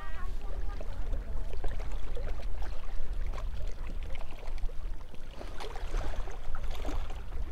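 Wind rumbling on the microphone and choppy lake water lapping against a small boat, with scattered light clicks.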